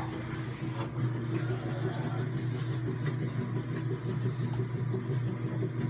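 Steady low machine hum, even in pitch, with a few faint clicks over it.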